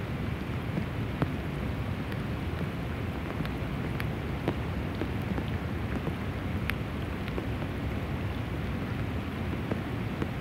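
Steady rain falling on a river and its rocky bank, a constant hiss with scattered sharp ticks of single drops landing close by.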